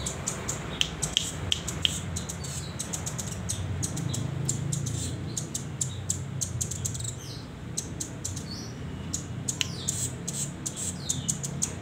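Young hand-reared rambatan doraemon (rambatan loreng) calling while it learns its song: a rapid, irregular run of short, sharp high chips and ticks, with a few short falling calls near the end. A steady low hum runs underneath.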